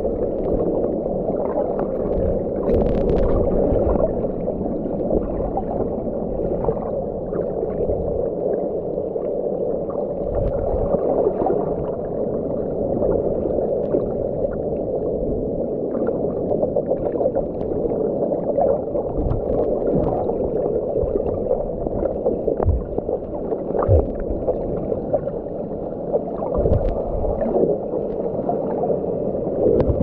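Muffled underwater sound picked up by a submerged camera: a steady rushing drone with scattered dull low thumps.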